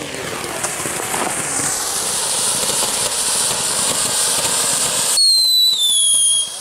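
Ground firework fountain spraying sparks with a loud, crackly hiss that grows over the first few seconds. About five seconds in, a high whistle takes over and slowly falls in pitch.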